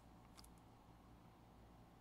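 Near silence: faint room tone with a low hum, and a faint tick about half a second in.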